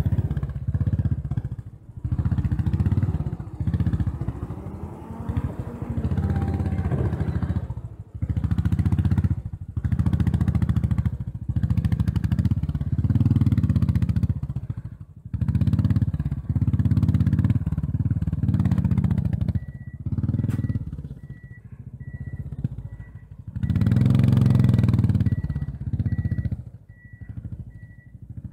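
Royal Enfield Bullet 500 single-cylinder engine running at low speed, the throttle opened and closed again and again as the bike picks its way over mud and rock. From about two-thirds of the way in, a thin high beep repeats about twice a second behind it.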